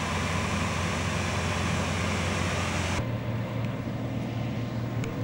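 Land Rover engine running steadily under a wide hiss. About three seconds in the sound cuts abruptly to a lower, steadier engine hum.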